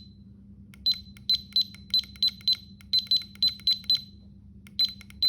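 Digital torque wrench's electronic beeper giving a run of short, high-pitched beeps at an uneven pace of about three a second, with a few more near the start and near the end, each with a faint click.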